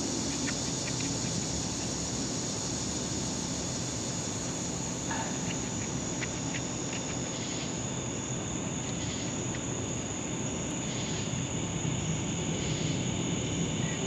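Steady high-pitched chorus of night insects, the one the uploader calls a cicada serenade, over a faint low hum. A few light clicks and rustles come from cord being wrapped tight around the stone head.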